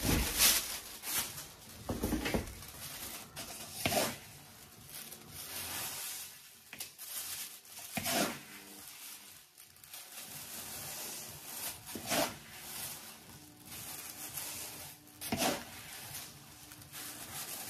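Plastic freezer bag rustling and small granules pattering as handfuls of fire-quenching pearls are scooped from a plastic bucket into the bag, in short bursts every few seconds.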